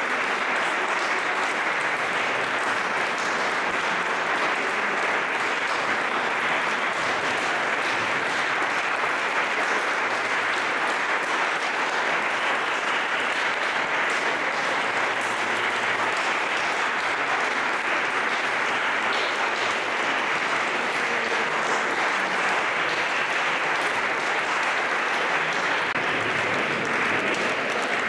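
Concert audience applauding, a dense, steady clapping that holds at the same level throughout.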